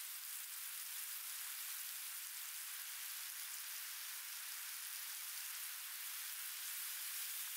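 Bacon and an egg frying in a grill pan on a portable gas stove, giving a steady, even sizzle.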